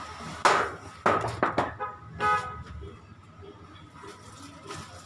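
Packaging and parts of an audio-gear box being handled in a few short rustling bursts, followed about two seconds in by a brief honk-like tone.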